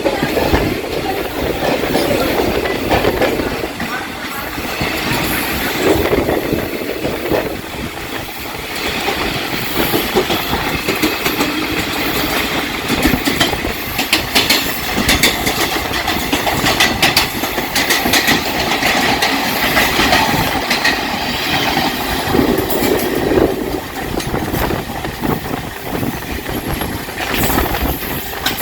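Trains running at speed on parallel tracks: a steady rolling rumble with rapid wheel clicks over the rail joints, busiest in the middle stretch.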